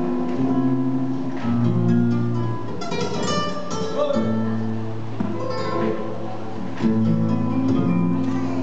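Live flamenco music for cantiñas: acoustic guitar playing held and strummed notes, with a few sharp knocks.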